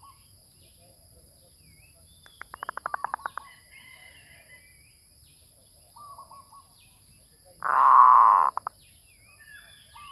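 Zebra dove cooing: a quick run of about a dozen short staccato notes about two seconds in, a brief note near six seconds, then a loud rolling coo about eight seconds in. Faint chirps of other birds and a steady high tone sit underneath.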